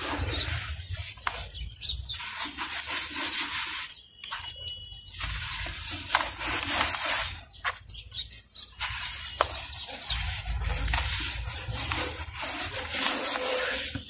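Hands raking, squeezing and sifting dry, dusty powder and crumbly lumps in a plastic tub: a crunchy, hissing rustle that pauses briefly about four seconds in and again around eight seconds.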